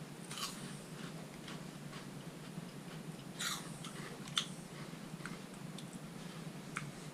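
Chewing of crunchy, heart-shaped Taffel corn snacks with nacho cheese flavour: faint, scattered crunches, a few seconds apart.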